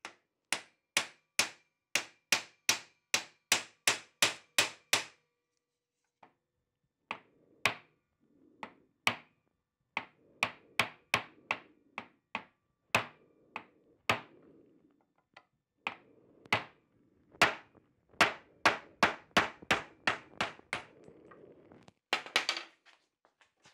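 Ball-peen hammer striking a steel pin punch to drive rusted roll pins out of a Porsche G50 pedal cluster held in vise grips. Sharp metallic strikes come about two to three a second in runs with short pauses, and a brief clatter follows near the end.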